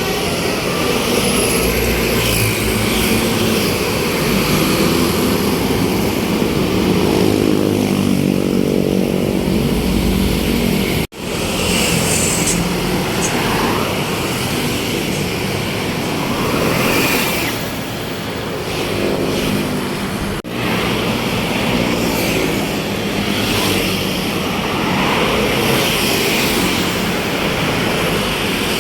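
Large tour buses' engines running and passing close by, a heavy steady rumble with a rising and falling engine note. The sound breaks off for an instant twice, about eleven and twenty seconds in.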